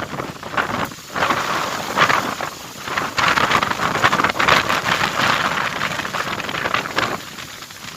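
Strong gusting wind, a rushing noise with crackles that swells and drops several times and eases about seven seconds in.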